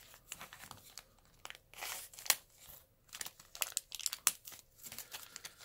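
Clear plastic coin flips and their plastic bag crinkling and rustling as they are handled and pulled apart, in irregular crackles with one louder snap a little over two seconds in.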